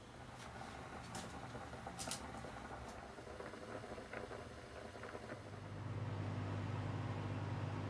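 Quiet room sound with a few light clicks in the first few seconds, then a steady low mechanical hum comes up about six seconds in.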